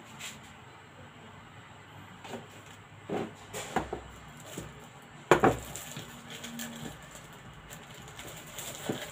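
Handling noises at a kitchen table: a plastic bag crinkling and a plastic canister being knocked and handled, a few sharp knocks, the loudest about five seconds in.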